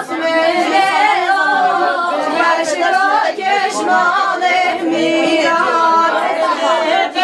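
Women singing together unaccompanied, their voices bending and wavering through a folk melody with no instruments.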